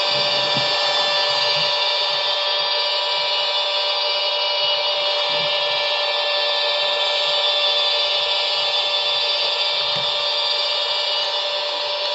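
Sound decoder in a model ALe 642 electric railcar playing its recorded running sound through the model's small loudspeaker: a steady electric whine with several held tones over a hiss, with faint low rumbles from the model running on the track.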